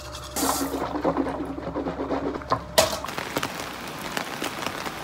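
Water running from a tap, cut off about three seconds in, then steady rain pattering on pavement.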